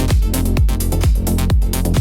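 Melodic techno track: a steady kick drum about twice a second under a stepping synth melody.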